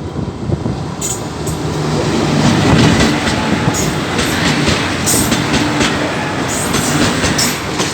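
Goods train rolling past: a steady rumble from the wagons, with irregular clicks and clatter as the wheels cross the rail joints.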